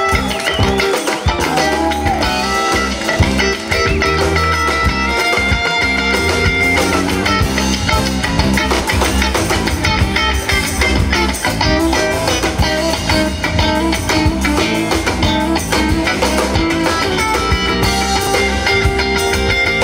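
Live band playing an instrumental stretch, guitar to the fore over drums.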